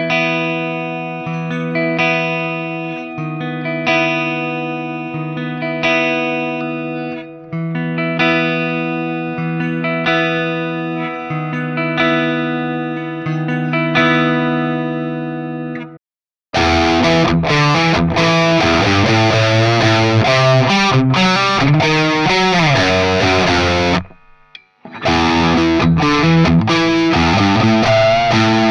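Cort CR250 electric guitar played through an amp: ringing, fairly clean chords let ring one after another for about half the time. It stops abruptly, then comes back with heavily distorted, busy riffing, broken by a brief pause near the end.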